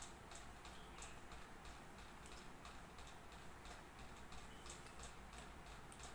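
Near silence: quiet room tone with faint, regular ticking, about one or two ticks a second.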